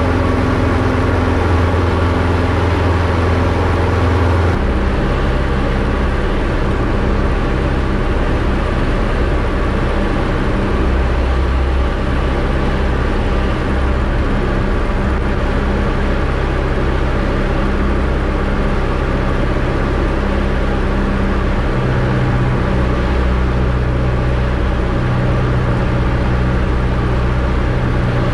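DA-20 light aircraft's engine and propeller droning steadily as heard inside the cockpit, under a broad rush of noise. The drone changes abruptly about four and a half seconds in, and its low tones shift in pitch now and then after that.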